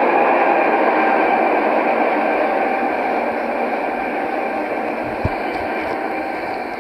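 Steady hissing noise with a few faint steady tones in it, fading slowly.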